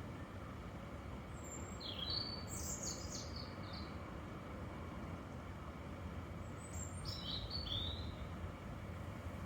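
A bird sings two short phrases of high chirps, about two seconds in and again about seven seconds in, over a steady low background rumble.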